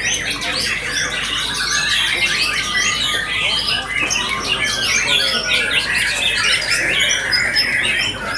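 A dense chorus of many caged songbirds singing at once, with white-rumped shamas among them: fast, overlapping whistles and chattering calls without a break.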